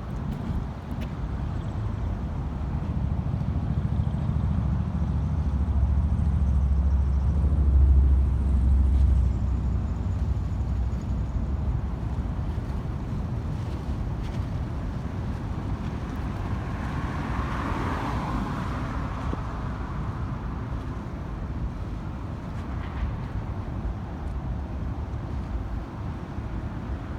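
Low rumble of passing road vehicles, swelling to its loudest about eight seconds in and easing off, with a second, higher-pitched swell of a passing vehicle around eighteen seconds in.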